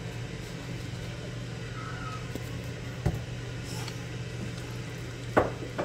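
Steady low mechanical hum of a kitchen appliance, with two sharp knocks from cooking at the stove, about three seconds in and near the end.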